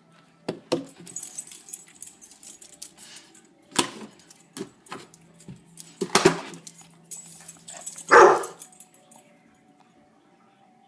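A dog barking sharply about four times, the loudest bark near the end, with jangling and rattling between the barks.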